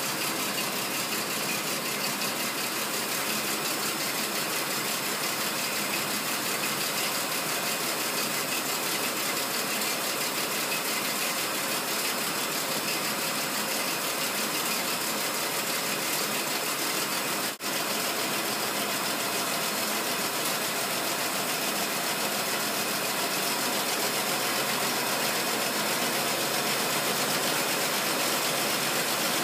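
1928 Rolls-Royce Phantom I's straight-six engine running smoothly at idle on its first test run in 15 years, with a momentary break in the sound about two-thirds of the way through.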